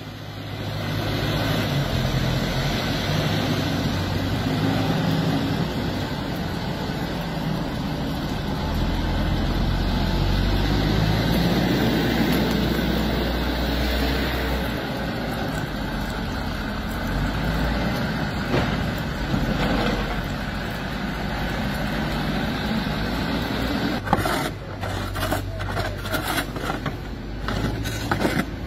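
Heavy diesel engines of a wheel loader and a truck running steadily while they push and load snow. Near the end, snow shovels scrape and knock on the pavement in quick, irregular strokes.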